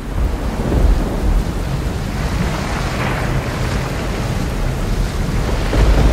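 Heavy splashing and churning of pool water as a person thrashes about in it: a loud, continuous rushing noise with a deep rumble underneath, swelling about a second in and again near the end.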